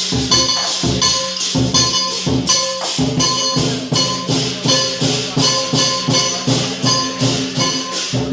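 Lion dance percussion: a large drum beaten in a fast, steady rhythm with clashing cymbals and a gong. The strikes come thicker from about three seconds in.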